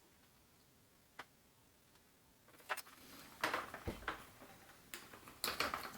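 Plastic clicks and scraping rattles of a dishwasher control board and its wire connector being worked loose by hand, the connector's small latches being pressed until it lets go. One sharp click about a second in, then a busy run of irregular clicks and scrapes from about three seconds in.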